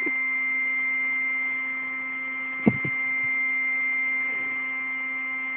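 Electric air pump running steadily, inflating an air mattress, with an even hum and a high whine. A single short knock comes about two and a half seconds in.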